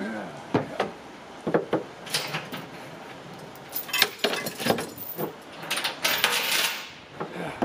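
Steel lifting chains clinking and rattling against metal, with scattered knocks and clanks, as a chain sling around an engine hung from a tractor loader bucket is handled in a steel truck bed. The longest jingling rattle comes from about four to six seconds in.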